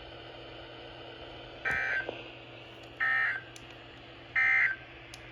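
Three short bursts of warbling EAS/SAME digital data tones from NOAA Weather Radio, evenly spaced a little over a second apart: the End of Message (NNNN) code that closes the Amber Alert broadcast. A faint steady hum and hiss lie underneath.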